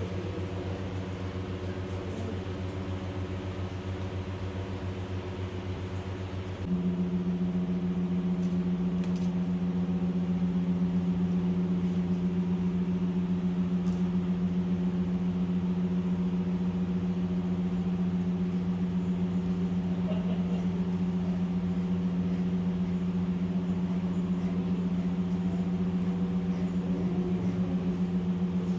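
Steady low hum of several held tones, stepping louder and shifting in pitch about seven seconds in.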